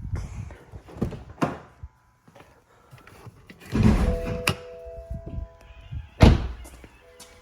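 A series of knocks and thumps, the loudest a sharp hit about six seconds in, with a steady tone lasting about a second just after the middle.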